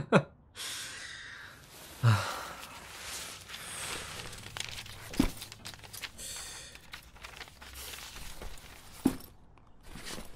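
Papers and books being rustled and shuffled as study things are packed away, with a few soft knocks.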